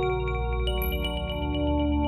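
Ambient synthesizer music of chime-like bell notes struck over held low tones, typical of plant biosonification, where a plant's electrical signals drive a synthesizer.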